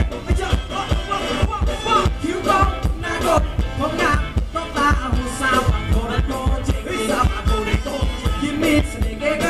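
Live band playing Thai ramwong dance music: a steady bass-drum beat under a singing voice and melody.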